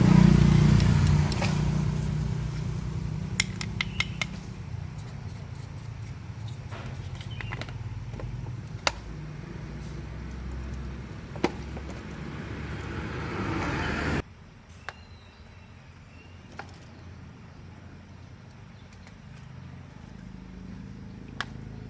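A motor vehicle's engine rumbling, loudest at the start and fading away over about fourteen seconds, with a few sharp clicks and knocks. About fourteen seconds in the sound cuts to a quieter low hum with a thin, steady high whine.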